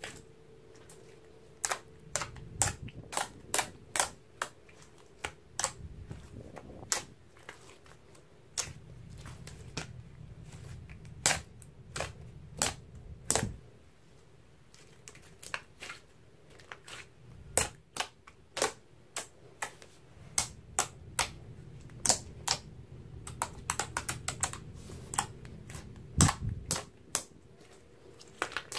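A large batch of slime being squished, pressed and folded by hand, giving irregular sharp clicks and pops, several a second at times, over a soft low squelching.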